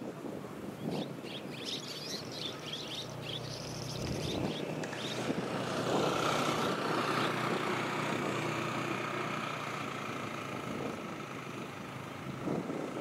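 Distant engine running with a steady low hum, and birds chirping for a moment a few seconds in. A steady higher tone joins about halfway through.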